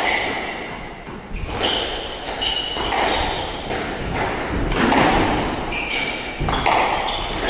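Irregular sharp knocks of a squash ball and racket, some with a short ringing ping, echoing in a walled squash court.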